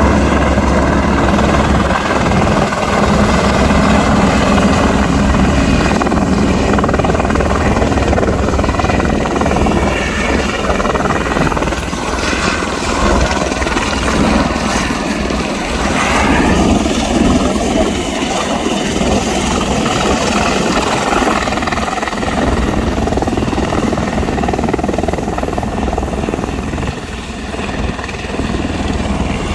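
Helicopter running close by: the steady, loud chop of the main rotor over the whine of its turbine engine.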